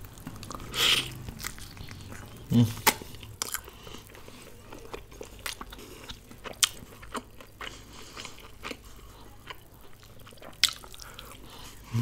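A person biting and chewing pieces of mutton from a curry, eaten by hand: scattered sharp mouth clicks and smacks, with louder bites about a second in and again near two and a half seconds.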